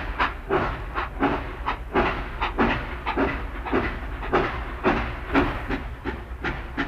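Train wheels clattering rhythmically over rail joints, about three clacks a second, over a steady low rumble.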